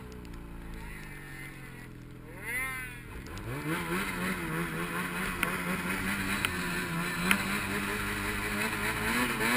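Snowmobile engine: its pitch sinks at first, then it revs up about two and a half seconds in and keeps running at a fairly steady, slightly wavering pitch.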